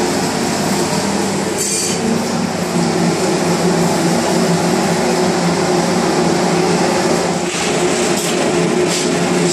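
Steady loud drone of commercial kitchen machinery, a low hum under a rushing noise, with a few brief clatters near the start and near the end.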